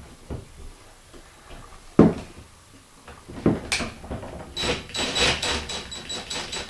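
Chrome shower-valve trim plate being pressed against the tiled wall and tightened by hand, with a sharp click about two seconds in, another knock near three and a half seconds, then a run of quick rubbing clicks.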